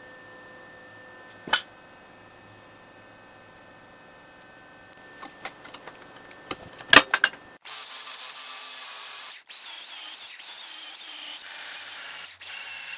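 A few sharp metal clanks as a steel grill guard is fitted to a tractor's front end, the loudest about seven seconds in. Then an angle grinder grinding steel with a high whine.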